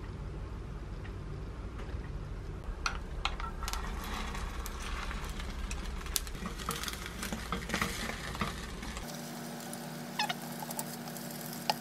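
Egg batter sizzling in a small square non-stick egg-roll pan over a steady low hum, with scattered clicks of utensils. After a cut about nine seconds in, a few sharp clicks of chopsticks against the pan.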